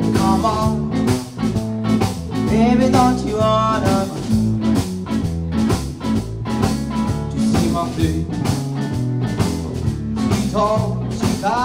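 Acoustic blues band playing a steady beat, with upright bass and acoustic guitar, and a melody line rising and falling over it at the start, in the middle and again near the end.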